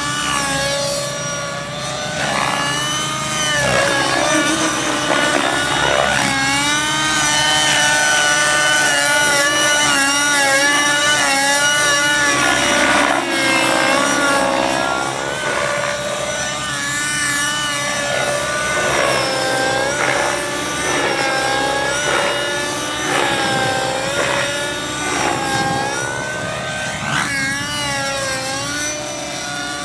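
Align T-Rex 600 Nitro RC helicopter in flight: its nitro glow engine and rotors give a loud whine whose pitch keeps rising and falling with the manoeuvres.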